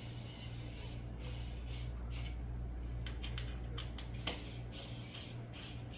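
Small plastic clicks and scrapes as a screwdriver works the plastic mesh clips and hooks on a Snoo bassinet's frame, with one sharper click near the middle, over a steady low hum.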